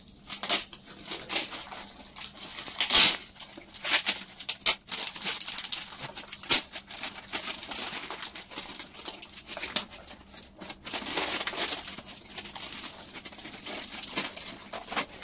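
Gift packaging being torn and pulled open by hand: irregular crackling, rustling and sharp snaps of wrapping and packing material, with the loudest snap about three seconds in. The packing is very tight and hard to get open.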